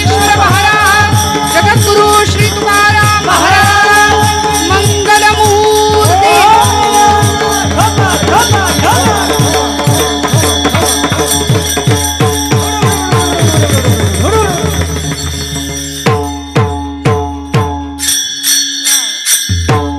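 Kirtan bhajan music: group singing of a devotional chant over a harmonium drone, with a fast steady beat of hand cymbals (taal) and a drum. The singing fades out around two-thirds of the way in, leaving the cymbal and drum rhythm, which drops out briefly near the end.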